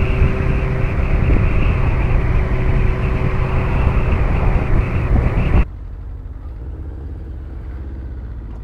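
Yamaha FZS600 Fazer's inline-four engine and heavy wind noise while riding at road speed. About five and a half seconds in the sound cuts off abruptly to a much quieter, steady low engine hum.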